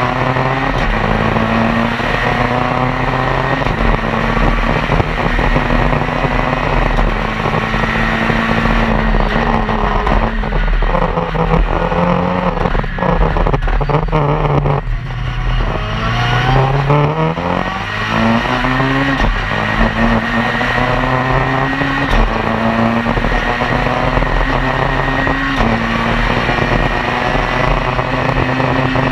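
Citroën C2 R2 Max rally car's four-cylinder engine heard from inside the cockpit, driven hard. It revs up and drops back with each gear change, over and over. About halfway through the revs fall away for a slower corner, then climb through the gears again.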